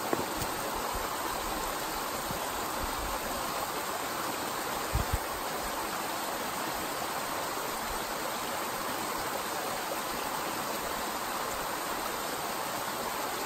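Small freestone brook-trout stream rushing steadily over riffles and small whitewater drops. There is a brief low thump about five seconds in.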